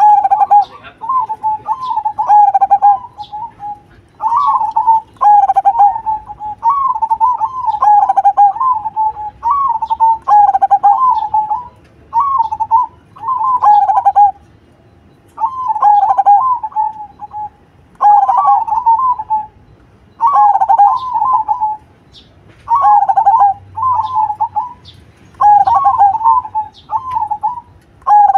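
Zebra dove (perkutut) cooing its song: trilled coo phrases at a steady pitch, each a second or two long, repeated over and over with short pauses between.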